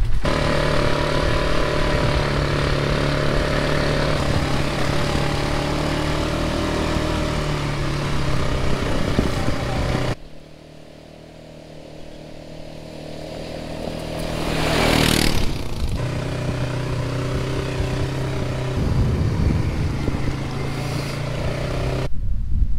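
Polaris Sportsman 570 ATV's single-cylinder engine running steadily under way on a dirt trail, heard from on board. About ten seconds in the sound drops away to a distant engine that grows louder as the ATV comes up and passes close by a few seconds later. After that the engine is heard from on board again.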